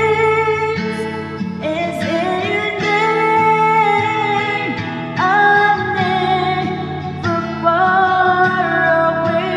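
A worship song performed with a voice singing a slow, held melody over acoustic guitar accompaniment.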